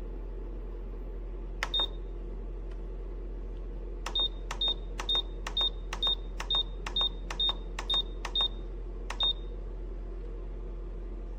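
Touch-control panel of a Nuwave Bravo Pro air fryer toaster oven beeping as its buttons are pressed, each press a click and a short high beep. There is one press, then a quick run of about ten at roughly two a second, then one more. A steady low hum runs underneath.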